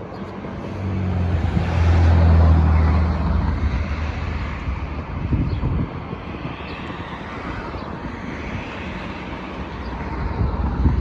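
Diesel locomotive passing, its engine drone loudest about two seconds in, then the steady rolling rush of the train going by.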